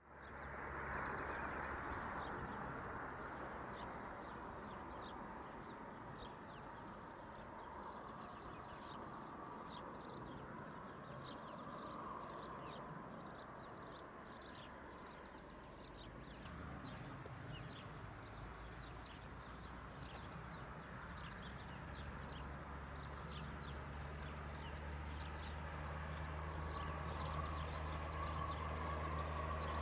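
Small birds chirping repeatedly, while the low steady drone of a distant diesel locomotive grows louder over the second half as the train approaches.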